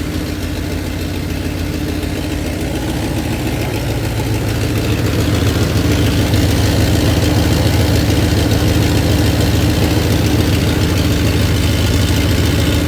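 Dodge Magnum 5.9 L (360) V8 idling steadily at operating temperature, getting somewhat louder about five seconds in. The engine is running well, which the owner takes as a sign that it is in perfect condition.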